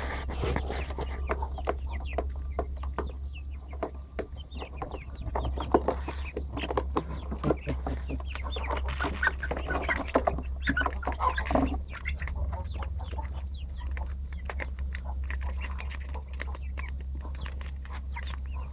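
Chickens clucking, with many short taps and ticks in quick succession over a steady low hum.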